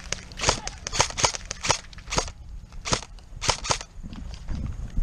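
Airsoft guns firing: a string of sharp, irregular single cracks, about a dozen in the first four seconds, thinning out near the end.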